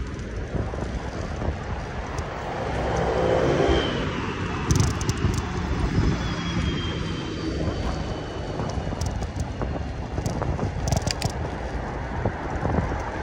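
Wind rushing over the microphone and tyre rumble from a bike or scooter rolling along an asphalt street, with a vehicle swelling past about three to four seconds in and a few sharp rattles around five and eleven seconds.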